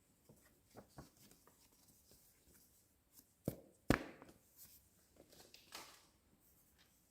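Handling noises: a scatter of light knocks, taps and rustles, with two louder thuds close together about three and a half seconds in.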